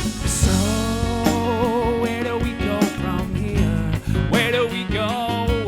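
Live acoustic band playing a country-folk song: guitar chords with a held, wavering melody line over them.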